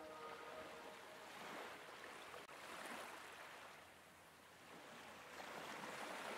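Faint airy whooshes from an animated outro's sound effects, swelling and fading twice. A held musical tone fades out about a second in.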